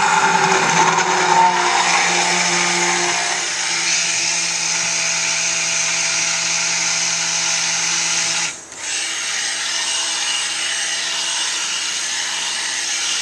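Electric stick blender running in a stainless steel pot of soap oils and lye, blending the batter toward trace. The motor whirs steadily, stops for a moment about two-thirds of the way through, then starts again.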